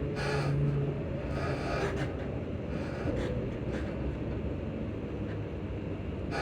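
Inside a ScotRail Class 334 electric multiple unit on the move: low rumble of wheels on rail under a steady electrical hum from the traction equipment. The hum fades out about a second in.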